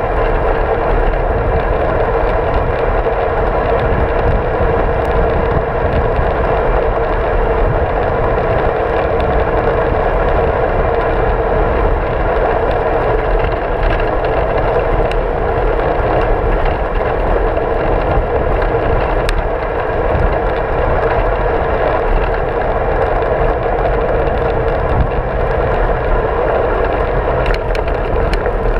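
Steady wind rush and road noise on a bicycle-mounted camera's microphone while riding, with a few light clicks near the end.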